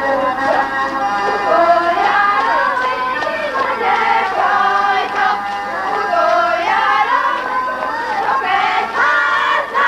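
A group of voices singing a Hungarian folk song over accordion accompaniment.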